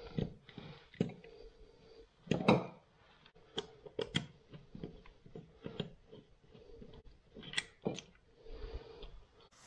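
Phillips screwdriver turning a screw out of a Moen faucet handle's base: scattered small clicks, taps and scrapes at irregular intervals, over a faint steady hum.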